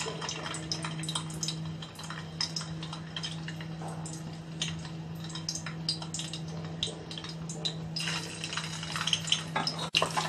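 Whole peeled boiled eggs frying in a little hot oil in a kadai on low flame: scattered light crackles and pops of the oil, growing denser near the end, over a steady low hum.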